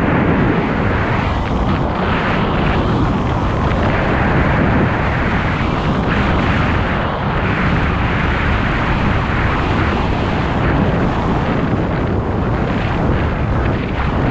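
Wind buffeting a GoPro's microphone while skiing downhill, as a loud, steady rumbling rush. Skis hiss over groomed snow beneath it.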